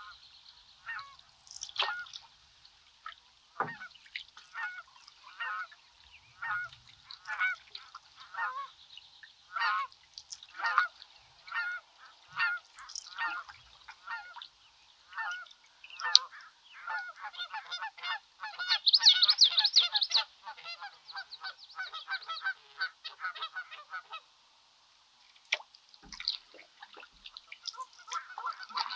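Geese honking, calls coming about once or twice a second and building to a dense, loud flurry of many overlapping calls about two-thirds of the way through, then stopping briefly before starting again near the end. One sharp click about halfway through.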